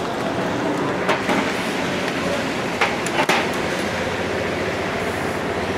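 A few sharp metal clicks and knocks from Cummins NT855 pistons and connecting rods being handled, two about a second in and two around three seconds in, over a steady workshop hum.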